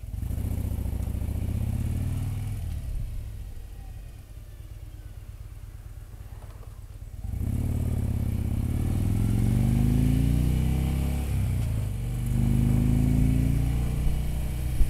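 Touring motorcycle engine running under way. It eases off to a low, quiet run a few seconds in, then about seven seconds in accelerates with a rising engine note, dips briefly as it shifts gear, and rises again. A short sharp click comes near the end.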